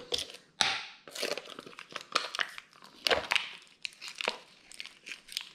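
Packaging of a GFuel powder tub crinkling and tearing as it is opened by hand, in short, irregular crackles.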